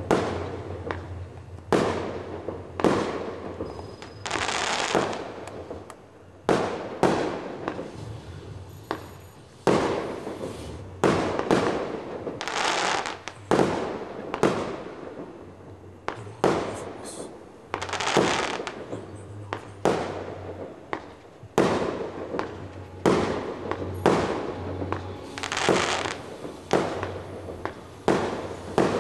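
A fireworks cake firing a rapid series of aerial shots, about one sharp bang a second, each trailing off. Several shots carry a longer hiss of about a second.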